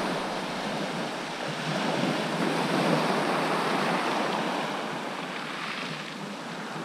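Sea surf washing onto the beach: a steady rush of waves that swells and eases slowly.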